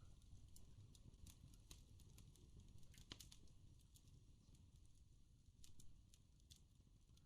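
Faint crackling fire: irregular small pops and snaps, a few a second, over a low steady background.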